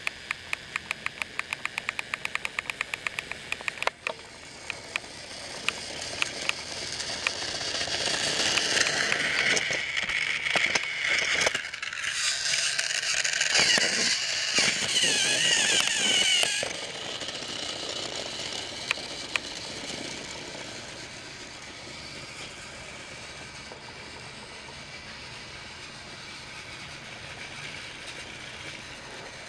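Motorized Trackmaster toy trains running on plastic track: a fast run of clicking from the wheels over the track joints, then the whir and whine of the small electric motors growing louder as they come close. About two-thirds through the whir drops suddenly to a quieter steady hum.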